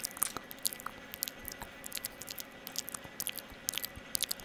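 ASMR mouth sounds: an irregular string of short, sharp lip smacks and mouth clicks, several a second.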